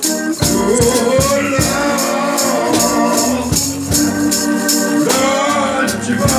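Gospel singing: a man's voice sings into a microphone over sustained organ chords, with hand percussion, shaker or tambourine, keeping a steady beat.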